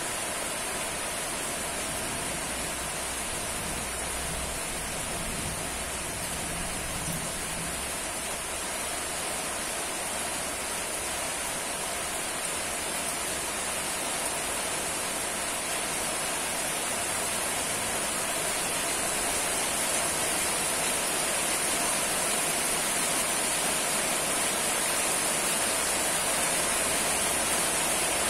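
Steady rain falling, an even hiss that grows slightly louder in the second half. A low rumble, the tail of thunder, fades out over the first several seconds.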